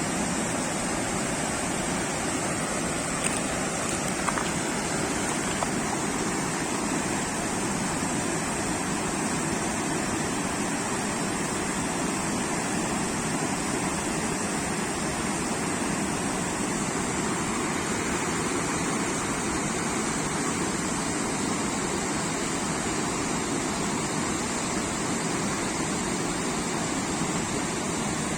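River water rushing steadily, an even noise that does not change, with a few faint clicks a few seconds in.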